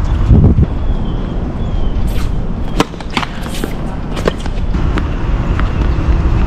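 Tennis balls struck by racquets and bouncing on a hard court during a doubles rally: sharp pops at uneven intervals, mostly from about two seconds in, over a steady low rumble.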